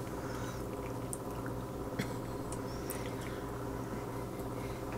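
Faint squishy mouth sounds and small clicks of a baby being spoon-fed, with one sharper click about two seconds in, over a steady low hum.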